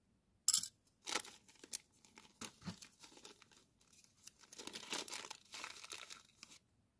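Small plastic zip-lock bag of metal earring backs crinkling and rustling in short bursts as it is pulled open and handled, the sharpest crackle about half a second in.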